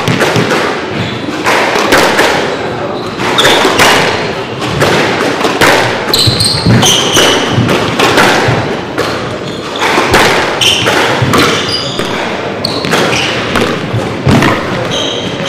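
Squash balls striking rackets, walls and floor in a large echoing hall, giving irregular sharp knocks over a murmur of voices.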